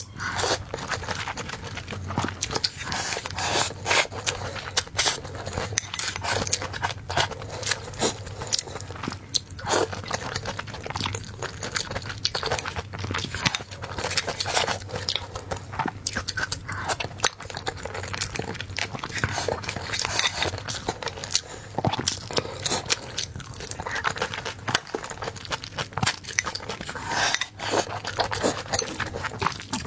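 Close-miked eating: biting and chewing with many quick, irregular crunchy clicks and smacks.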